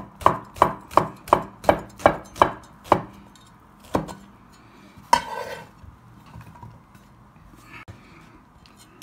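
Cleaver chopping through slices of beef ham sausage onto a wooden cutting board. The knocks come steadily, about three a second for the first three seconds, then one more chop about four seconds in. A short, noisier sound follows at about five seconds, then it goes quiet.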